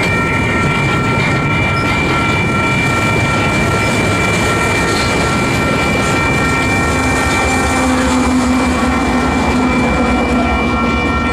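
Double-stack intermodal container cars rolling past at speed: a steady rumble of wheels on rail with a steady high-pitched ringing over it. Near the end the rear GE C44ACCTE distributed-power locomotive passes, adding a steady low diesel engine drone.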